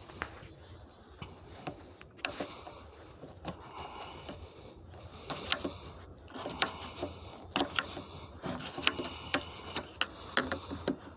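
Old wood chisel prying up the metal edges of a radiator's end to free the plastic tank: irregular sharp clicks and taps, sparse at first and coming faster in the second half.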